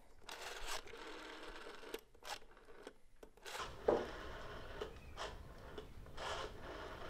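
A rotary telephone dial being dialed: several digits in a row, each a turn of the finger wheel followed by its whirring, clicking run back, with short pauses between digits and a sharper knock about four seconds in.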